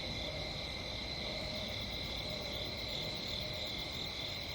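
Steady chorus of night insects, a continuous high trill that does not let up.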